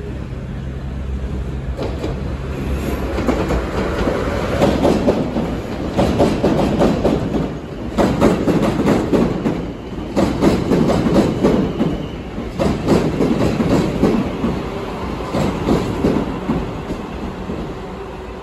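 A South Western Railway electric multiple unit rolling slowly past, its wheels clattering over rail joints and points, with a cluster of knocks about every two seconds as each bogie crosses. A diesel train's low engine hum dies away in the first couple of seconds.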